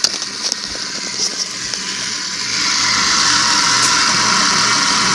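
Two fidget spinners, one of them metal, whirring steadily just after being flicked into motion, with a few clicks at the start; the whir gets louder about halfway through.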